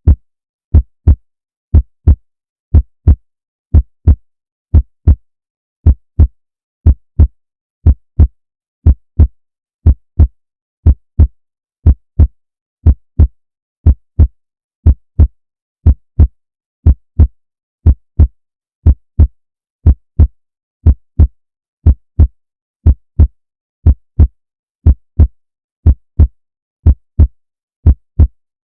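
Human heartbeat: a steady lub-dub double thump repeating about once a second, deep and low, with silence between beats.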